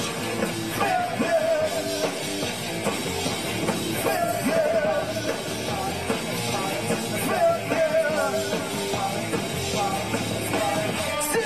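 Live rock band playing a song: drums and bass guitar, with a man singing lead at the microphone.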